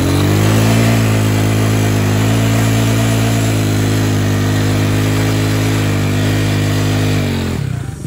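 Hawk 250 dual-sport motorcycle's single-cylinder engine revved up and held at high revs while the front brake holds the bike and the rear wheel spins, testing the newly fitted front brake pads. The revs climb in the first second, stay high and steady, then drop away near the end.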